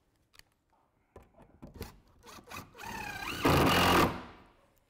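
Cordless drill-driver driving a screw into a timber roof purlin. A few light knocks come first, then the motor whine rises and becomes loudest from about three and a half to four seconds in as the screw is driven home, then stops.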